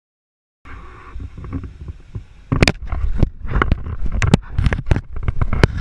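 A camera being mouthed and chewed by a large animal: close rumbling handling noise with many sharp knocks and scrapes against the camera. It starts about half a second in and grows louder and busier after about two and a half seconds.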